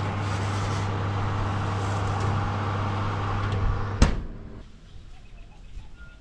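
Electric oven's fan running with a steady hum while a baking tray is slid in. The oven door shuts with a single sharp thud about four seconds in, and soon after that the hum stops.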